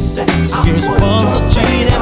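A mellow pop/R&B song playing: a singer's voice over a steady drum beat and bass.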